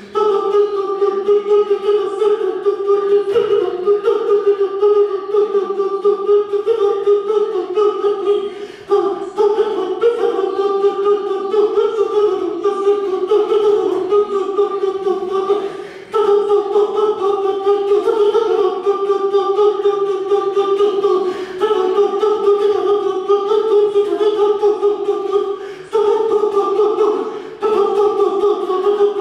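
Unaccompanied singing that holds one steady note in long phrases, with brief breaks every five to nine seconds.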